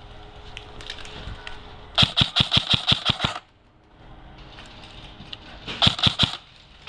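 Airsoft rifle firing a rapid burst of about ten shots, about eight a second, then a shorter burst of a few shots near the end.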